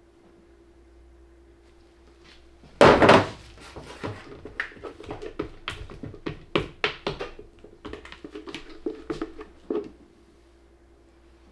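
A spatula knocking and scraping against a container of cold-process soap batter: one heavy thunk about three seconds in, then a run of quick taps and scrapes for about six seconds.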